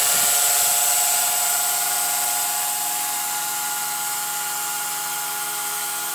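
Two Blade 130X electric RC helicopters flying, their motors and rotors making a steady high whine that slowly gets a little quieter.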